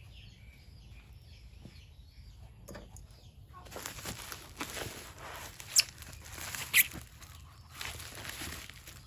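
Cardboard packaging being handled and opened: rustling that starts a few seconds in, with two sharp snaps about a second apart.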